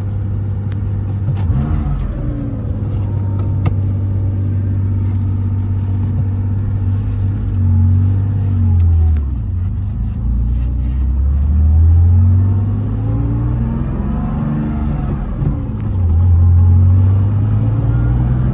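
Air-cooled flat-six engine of a 1973 Porsche 911T pulling as the car accelerates. The engine note climbs in pitch, drops at each upshift about 9 and 15 seconds in, then climbs again. The gears change without grinding.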